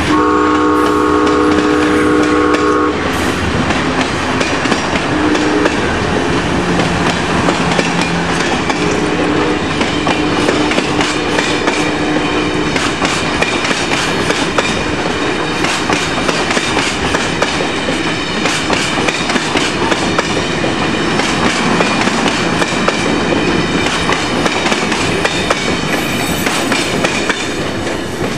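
Amtrak Silver Star passenger train rolling past a grade crossing: a steady rumble with rapid clickety-clack of the wheels over the rail joints. The horn chord sounds for about the first three seconds, with a few shorter, fainter horn notes later.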